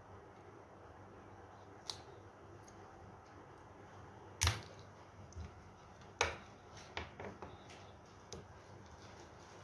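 Small hard parts of a dental handpiece and repair tools clicking and tapping at irregular intervals during a cartridge change, the sharpest clicks about four and a half and six seconds in.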